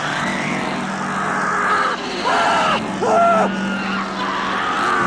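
A car engine running steadily, with two short, high wavering screeches about two and three seconds in.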